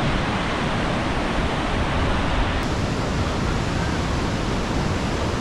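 Tenaya Creek's white-water rapids rushing over boulders: a loud, steady roar of fast-flowing water.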